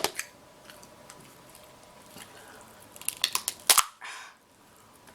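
King crab shell being cracked and snapped by hand: a couple of sharp cracks at the start, a quick run of louder cracks about three seconds in, then a brief rustle and one more crack at the end.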